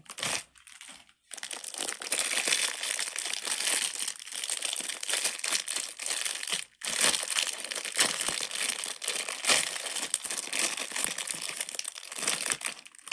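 Crinkling packaging being handled, a dense crackle with a couple of brief pauses.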